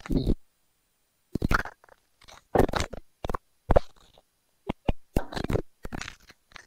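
Scrap wooden boards being picked up and dropped: a run of short, irregular knocks and clunks.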